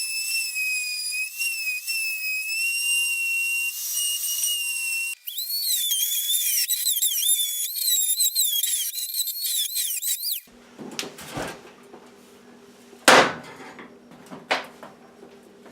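Small high-speed rotary tool with a diamond cutting wheel whining steadily, then cutting into a seized screw, its pitch wavering and dipping as the wheel bites; it cuts off sharply about ten seconds in. Then comes a low hum with a few clicks and one loud knock near the end.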